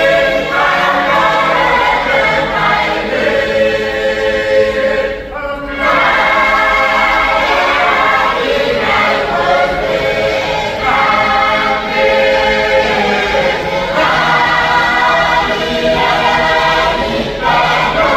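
Women's choir singing a hymn in harmony, unaccompanied, in long sustained phrases with short breaks between them.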